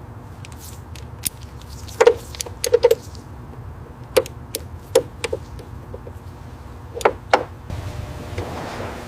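Scattered sharp clinks and taps, some with a short ring, over a steady low hum: a cluster about two to three seconds in, single ones around the middle, and a pair near the end.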